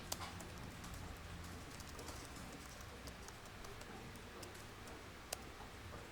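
Quiet office ambience: a steady low hum with scattered faint clicks and taps of computer-keyboard typing, and a sharper click about five seconds in.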